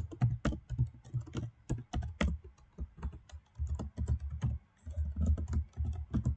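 Typing on a computer keyboard: quick, irregular keystrokes, several a second, in short runs with brief pauses between them.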